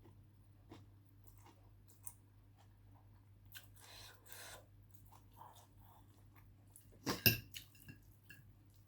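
A person chewing food with small mouth clicks, close to the microphone, with a short louder burst of sound about seven seconds in.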